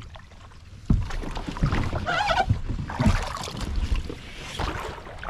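Kayak on moving river water: paddle splashes and knocks on the hull, with a sharp knock about a second in, over wind rumble on the microphone.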